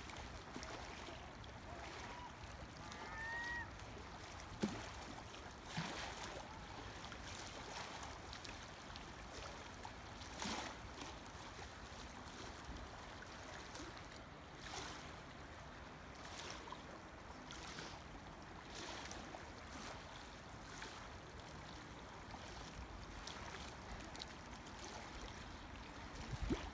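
Small waves lapping faintly against a rocky shore: a soft steady wash with a little splash every second or two.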